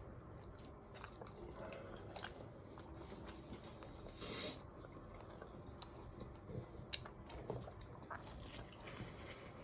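Faint chewing of food, with small scattered clicks and a short soft hiss about four seconds in.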